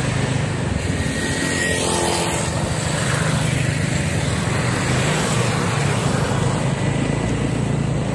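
Road traffic: a steady low engine drone under the noise of vehicles passing, with a car going by close near the start.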